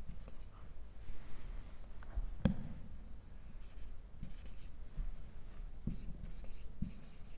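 Marker pen writing on a whiteboard: soft scratching strokes as letters are drawn, with one sharper click about two and a half seconds in.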